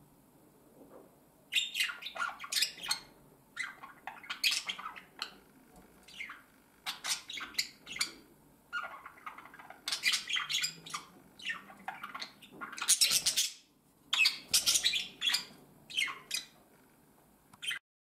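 Budgerigars chattering in quick bursts of sharp chirps and squawks, starting about one and a half seconds in, with short pauses between the bursts.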